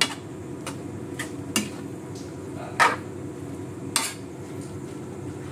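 Metal spatula scraping and clinking against a metal wok while stir-frying noodles, a few sharp clinks spaced about a second apart.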